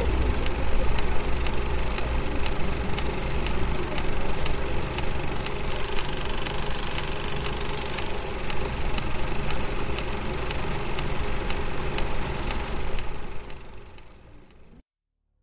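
A steady, engine-like mechanical rumble with a faint regular knocking. It fades out about two seconds before the end and gives way to a brief silence.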